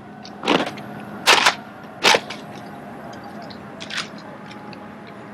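Drill rifles knocking sharply as they are caught and handled in rifle drill: three loud cracks in the first two seconds or so, the middle one a slightly longer near-unison clatter, then a lighter knock about four seconds in.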